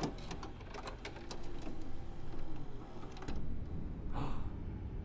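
VCR mechanism clicking and whirring as a play button is pressed and a tape starts to play. A short breathy rush comes near the end.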